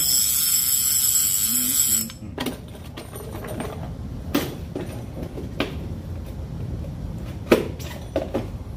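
An Avet LX Raptor conventional fishing reel being worked by hand gives a loud, high whirring buzz for about two seconds that stops abruptly. This is followed by a few scattered knocks and cardboard handling sounds, the sharpest about seven and a half seconds in.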